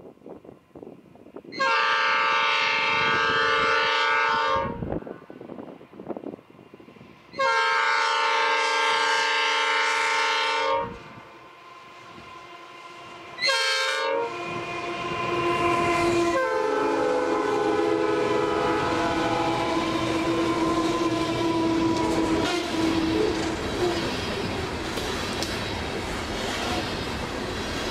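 A GE E60C-2 electric locomotive's multi-chime air horn sounds two long blasts, a short one and a final long one, the long-long-short-long grade-crossing signal; the last blast drops in pitch as the locomotive passes. Then the loaded coal hopper cars roll by, with steady wheel noise on the rails and repeated clicks over the rail joints.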